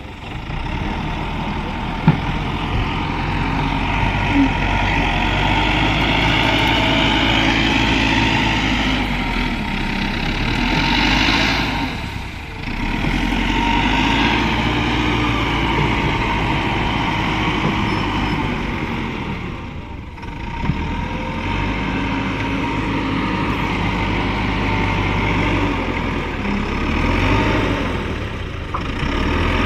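Bulldozer's diesel engine running steadily under load, with a high wavering squeal over it. The engine dips briefly twice, about twelve and twenty seconds in, then picks up again.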